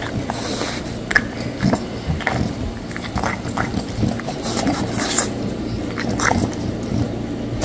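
French bulldog chewing crunchy snacks, with irregular crunches.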